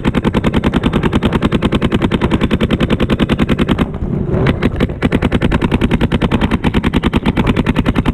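Paintball marker firing in a rapid, even stream of about a dozen shots a second. It breaks off for about a second near the middle and then fires steadily again.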